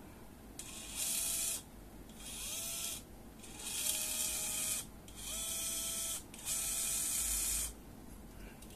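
Small DC gearmotor with a 20 RPM gearbox running in five short bursts as its joystick potentiometer is pushed and released, each burst a high whirring hiss with a faint whine that rises at the start and then holds steady.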